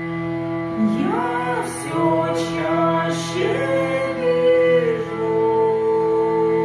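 Hurdy-gurdy drones sounding steadily while a woman sings over them, entering about a second in with a slow, sliding melody and holding a long note through the second half.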